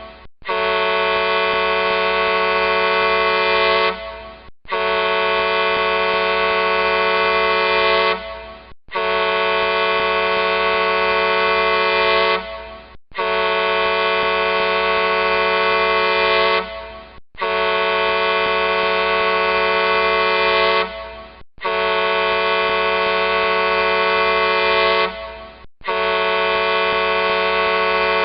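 A large truck's air horn sounds a series of long blasts, each about four seconds, with brief breaks between them. There are seven in all, and the last is still sounding at the end.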